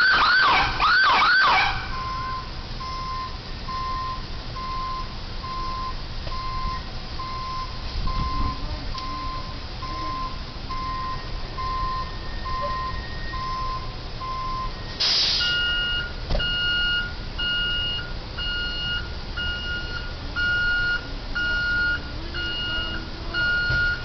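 Ambulance siren giving a short, loud yelp of quick rising and falling sweeps to warn off a reversing truck. After it, a steady electronic beep sounds about once a second; about fifteen seconds in there is a sharp knock, and then a faster, higher beeping.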